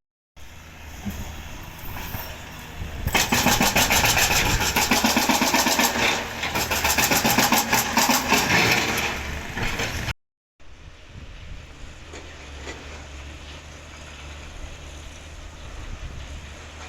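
A motor vehicle's engine running close by, loud for several seconds with a fast, even pulsing, then cut off abruptly and replaced by a quieter steady background.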